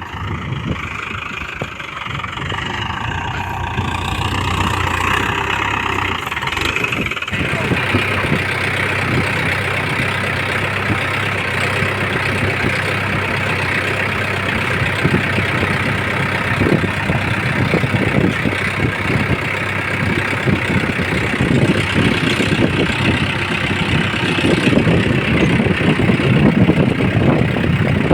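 Mahindra Yuvo 415 DI tractor's diesel engine running steadily while ploughing, growing a little louder near the end. In the first several seconds a wavering voice sounds over the engine, and the sound changes abruptly about seven seconds in.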